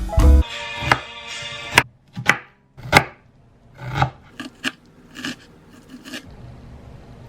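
A kitchen knife cutting through asparagus stalks onto a cutting board: about eight sharp, irregularly spaced chops, trimming off the ends.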